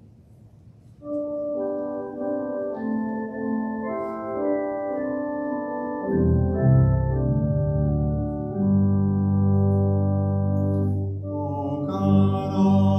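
Church organ playing slow, sustained chords, coming in about a second in, with deep pedal bass notes joining about halfway through: the musical lead-in to the responsorial psalm after the first reading.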